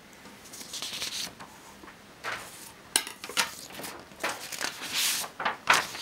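Sheets of paper being handled and slid across a table, rustling in irregular bursts, with a few sharp clicks and taps mixed in, the first about halfway through.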